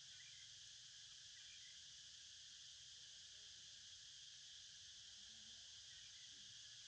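Near silence, with only a faint, steady high-pitched insect drone in the background.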